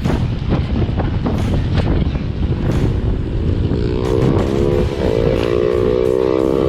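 Wind buffeting the microphone of a camera on a road bike ridden at race speed: a loud, steady rumble with occasional short knocks. About four seconds in, a held, slightly rising pitched sound joins it, most likely the start of background music.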